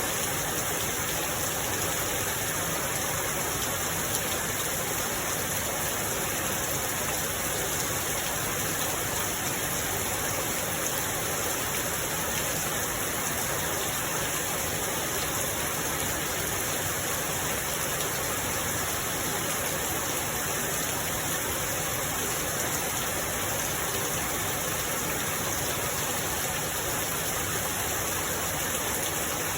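Steady rain, a dense even hiss without separate drops standing out.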